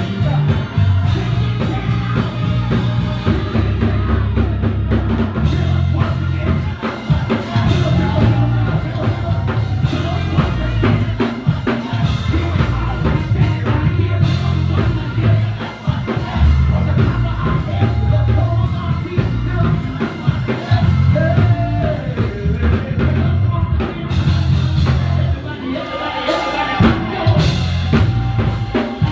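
Live music with singing over a full drum kit and heavy bass, a steady rock beat throughout.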